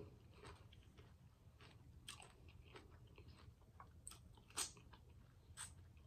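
Faint close-miked chewing and biting, with a few soft mouth clicks and smacks, the clearest about two thirds of the way in.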